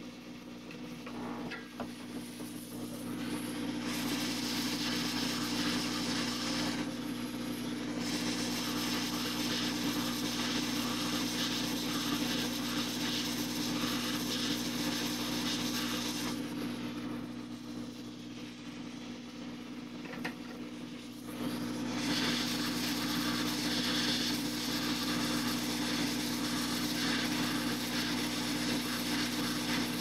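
Soldering work on a micro USB charging port's joints: crackling hiss from about four seconds in, easing off for several seconds in the middle and then coming back, over a steady low hum.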